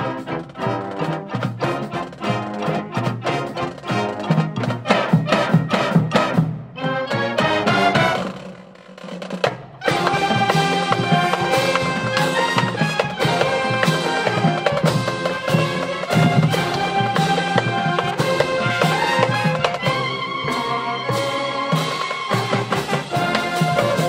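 Marching band playing, brass over a steady drum beat. The music thins out and drops in level for about a second and a half, eight seconds in, then the full band comes back in with held brass chords.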